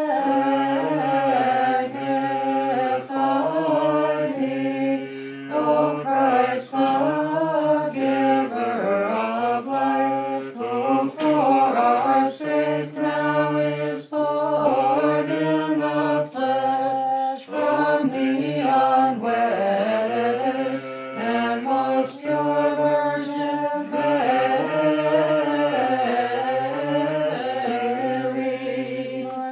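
Unaccompanied voices singing a Znamenny-chant Nativity carol in English: a slow melody of long held notes with gently bending turns.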